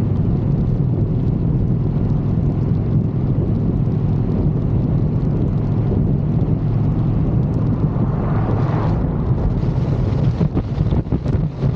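Motorcycle riding at road speed: the engine runs steadily under heavy wind noise on the microphone. A louder rushing swell comes about eight seconds in, and uneven wind buffeting follows near the end.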